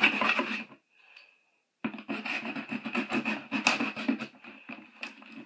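Knife blade scraping and jabbing through packing tape on a cardboard shipping box: rapid scratching strokes that stop for about a second, then resume and grow fainter near the end.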